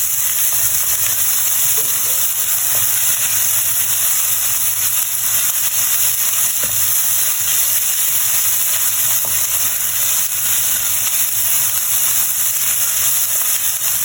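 Hot oil sizzling steadily in a cooking pan as food fries in it.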